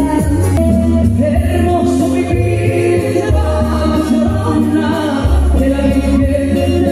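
Live band music amplified through a PA: several women singing held notes together in harmony over electric guitar, keyboards and a strong bass line.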